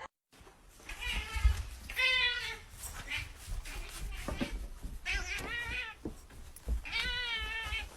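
Domestic cat meowing repeatedly: several drawn-out, wavering meows a second or two apart.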